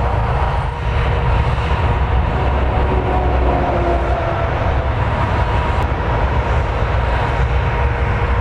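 Airbus A380's four jet engines on final approach: a steady roar with a high whine held on two tones, under a gusty low rumble of crosswind buffeting the microphone.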